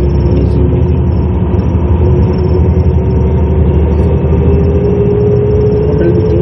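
Bus engine running, heard from inside the passenger cabin: a steady low drone with a whine that rises slowly in pitch as the bus moves along.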